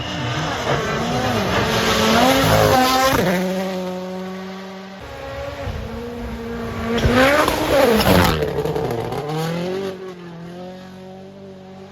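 Rally1 rally cars' turbocharged four-cylinder engines at full throttle going past, twice: each pass climbs in pitch through the gears, is loudest as the car goes by, then falls away.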